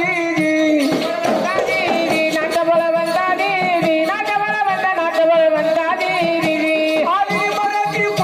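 A man singing a Marathi powada in long held, wavering notes over folk accompaniment, with soft regular drum beats underneath.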